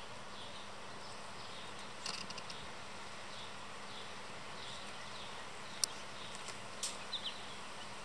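Faint repeated short high chirps over a steady background hiss, with a few sharp clicks and taps from birds landing and scuffling on a hanging seed feeder, about two seconds in and again near the end.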